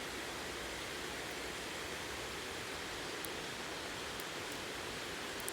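Steady rushing of water pouring over a river weir, an even hiss without pitch, with a few faint, tiny high ticks in the second half.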